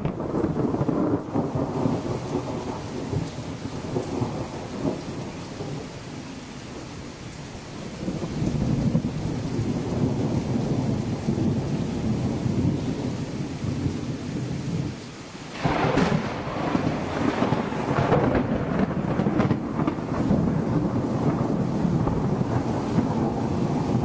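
Thunder rolling almost without break over steady rain, easing off for a few seconds about a quarter of the way in. About two-thirds through, after a brief lull, a sudden loud thunderclap breaks in and the rumbling carries on.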